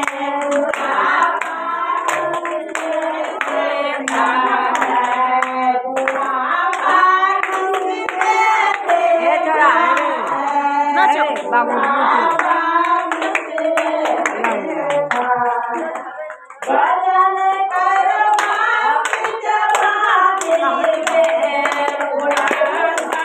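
A group of women singing a devotional Shiv bhajan together while clapping in rhythm. The singing breaks off briefly about two-thirds of the way through, then resumes.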